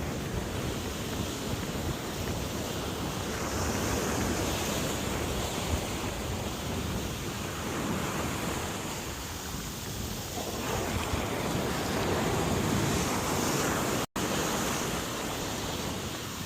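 Surf washing onto a beach in slow swells, with wind buffeting the microphone. The sound cuts out for an instant about 14 seconds in.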